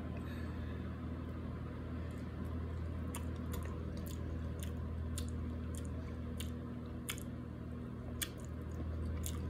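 A person chewing soft, creamy durian flesh close to the microphone: wet squishing with scattered sharp mouth clicks and smacks.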